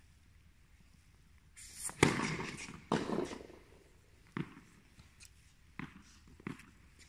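Tennis racket striking the ball on a serve: a sharp, loud pop about two seconds in that echoes around the indoor hall. It is followed about a second later by another loud knock, then by a few softer knocks spaced more than a second apart.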